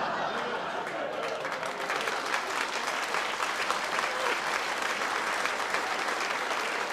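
Theatre audience clapping steadily in response to a comedian's punchline.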